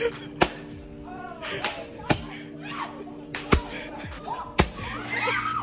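Handheld Roman candle firing: four sharp pops, one every second or so, over music and shouting voices.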